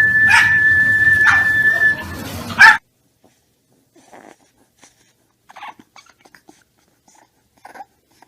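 A dog holding one long, high whine for about three seconds, ending in a sharp knock. The sound then cuts off and only faint scattered small ticks follow.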